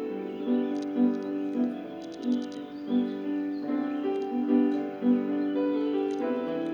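Piano playing a slow melody over chords, new notes struck about every half second.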